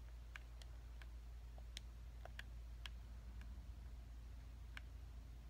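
Faint, irregular clicks of game-controller buttons being pressed, about ten of them, while menus are navigated, over a steady low hum.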